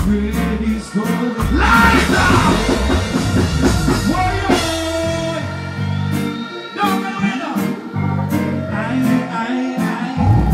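A singer performing live into a microphone over loud backing music with heavy bass and a steady beat, played through a stage sound system.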